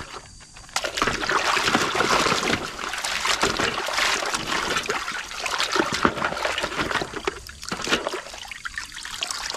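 Muddy water sloshing and splashing in a basin as a hand scrubs a toy fire truck back and forth through it. The churning starts about a second in and eases off briefly near the end.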